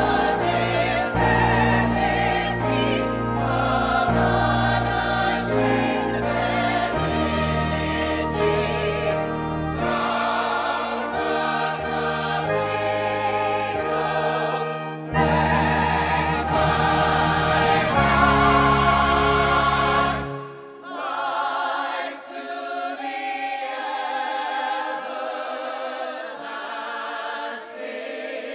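Musical-theatre choral ensemble singing with instrumental accompaniment. About two-thirds of the way through, the deep bass drops away and the sustained singing goes on over lighter accompaniment.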